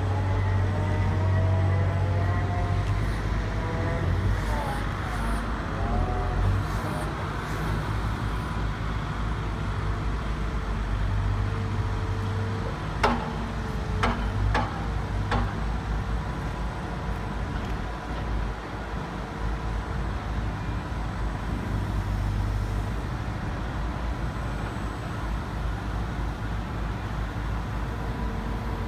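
Caterpillar M315 wheeled excavator's diesel engine running steadily, with a whine that wavers in pitch during the first several seconds as the machine drives out. About halfway through come four sharp clanks as the boom is worked.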